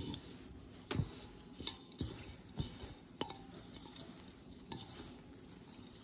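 Gloved hands tossing damp mugwort leaves with rice flour in a metal bowl: soft rustling broken by about six light knocks and clinks against the bowl.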